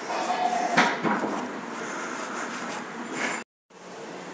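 Toothbrush bristles scrubbing dust off a hard drive's circuit board: a steady scratchy rustle with a few stronger strokes, broken by a brief gap near the end.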